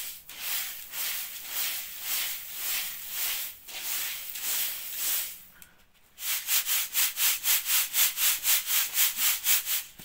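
Boiled, dried wheat for bulgur hissing in a wooden-rimmed sieve as it is sifted clean. For the first five seconds or so the grain is rubbed by hand in slow strokes. Then, about six seconds in, the sieve is shaken back and forth and the grain swishes in an even rhythm, about five times a second, until it stops near the end.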